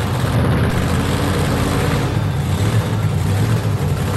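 Modified V8 engine of a two-wheel-drive pulling truck, blower sticking up through the hood, running loud and steady at idle with no revving.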